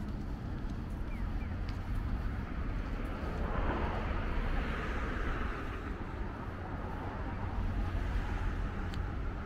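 Street traffic: a steady low rumble, with a vehicle swelling up and passing from about three and a half to six seconds in.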